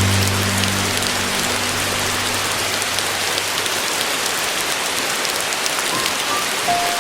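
Steady rain falling, heard as an even patter throughout, with soft piano notes laid over it. A low sustained chord fades away over the first three seconds, and a few single higher notes sound near the end.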